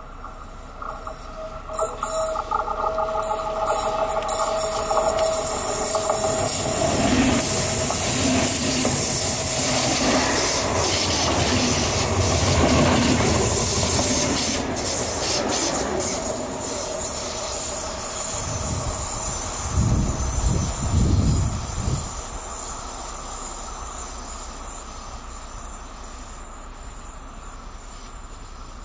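ČD class 471 CityElefant double-deck electric train passing at speed on a curve. It approaches with a high whining tone, goes by close with a loud rush of wheel and rail noise and clicking over the rail joints, then fades away.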